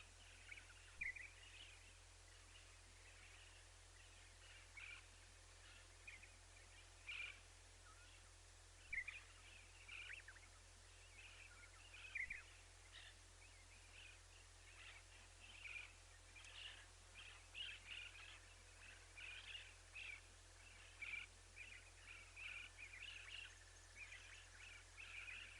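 Faint bird chirps and short calls, scattered at first and coming more often in the second half, over a steady background hiss.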